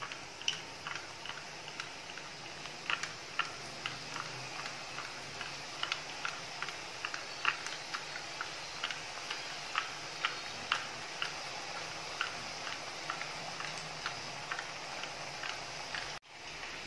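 Pakkavada dough of rice flour and gram flour deep-frying in hot oil in a kadai: a steady sizzle with irregular sharp pops and crackles, several a second. The sound drops out briefly near the end.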